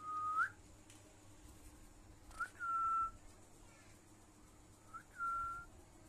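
Rose-ringed parakeet whistling three short, steady notes a couple of seconds apart: the first ends with a quick upward flick, the next two begin with one.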